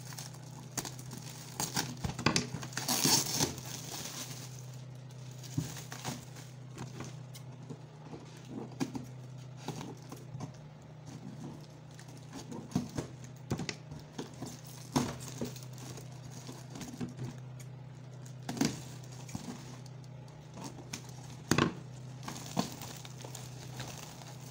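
Plastic wrapping and cardboard packaging crinkling and rustling as a parcel is cut open with scissors and pulled apart, in scattered clicks and rustles with a louder crinkling stretch about two to four seconds in. A steady low hum runs underneath.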